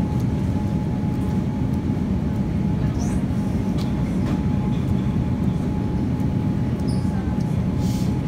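Steady low rumble of store background noise, with a faint constant hum above it and a few light clicks.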